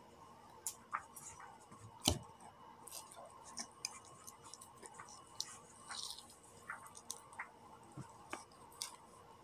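Scattered light clicks and taps from black plastic forks and banana pieces being handled, with one louder knock about two seconds in.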